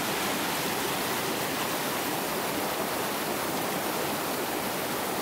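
Creek water rushing steadily over rocks and small rapids.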